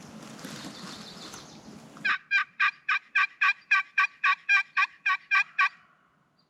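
Turkey yelping: a series of about fourteen loud, evenly spaced yelps at roughly four a second, lasting about three and a half seconds. Before it, about two seconds of a noisy hiss cuts off abruptly.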